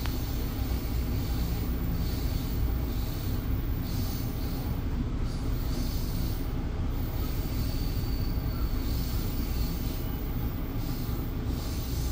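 Steady low rumble of a Bombardier MultiLevel commuter coach running along the track, heard from inside the car, with a faint high whine that comes and goes.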